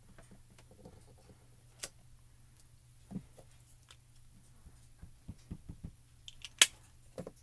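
Light plastic clicks and taps from handling a clear acrylic stamping block and a small ink pad. A run of quick taps comes about five seconds in, and one sharp, loud click comes near the end.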